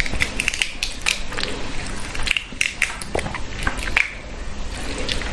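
Shell of a curried giant freshwater prawn being cracked and pulled apart by hand to get the meat out: irregular short clicks, crunches and wet squishes.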